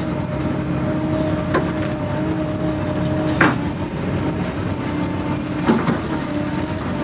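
Doosan excavator heard from inside its cab: the diesel engine runs steadily and the hydraulics whine, the tone shifting as the bucket and thumb work. Sharp clunks come about a second and a half, three and a half and nearly six seconds in.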